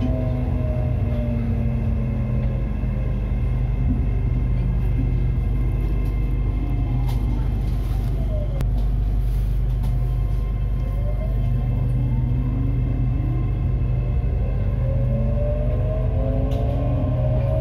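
SRT Red Line electric commuter train heard from inside the carriage, with the whine of its traction motors over a steady low rumble. The whine falls in pitch as the train slows through the station, bottoms out about eight or nine seconds in, then rises as the train picks up speed again.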